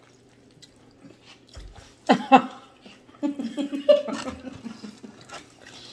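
A woman's wordless vocal sounds while eating: a short laugh-like burst about two seconds in, then a longer stretch of humming 'mm' sounds. Soft clicks of food handling come before.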